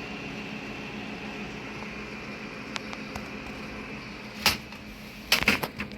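Steady whir of a running desktop PC's fans with a faint high whine, broken by a sharp knock about four and a half seconds in and a quick cluster of knocks near the end.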